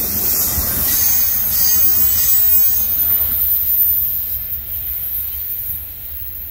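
Tail end of a double-stack intermodal freight train passing and rolling away: steel wheels running on the rails with a few faint high wheel squeals, the sound fading over the last couple of seconds as the train recedes.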